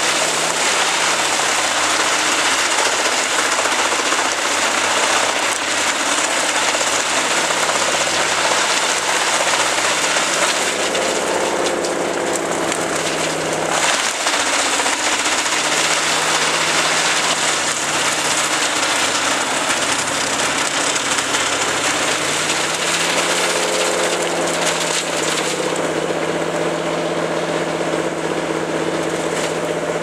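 Forwarder-mounted wood chipper chipping brush and small trees fed in by a crane grapple: a loud, continuous grinding noise over the machine's engine hum, whose tone shifts a couple of times as the load changes.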